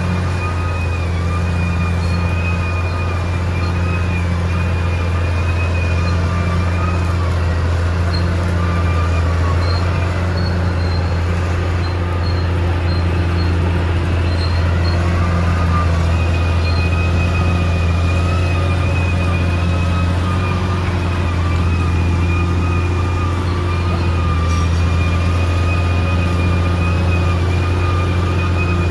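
Caterpillar D6R XL bulldozer running steadily with a strong low engine drone, and a thin, wavering high whine over it that drops out for a few seconds near the middle.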